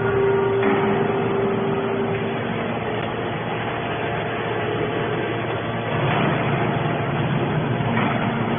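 Hydraulic aluminum can baler running: a steady mechanical hum with a held tone over the first couple of seconds, getting louder about six seconds in.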